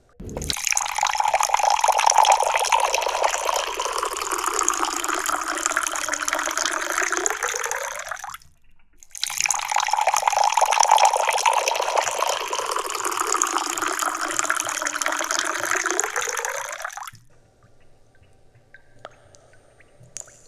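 Tea poured in two steady streams into a fairness pitcher, each lasting about eight seconds and cutting off sharply, followed by a few faint drips near the end.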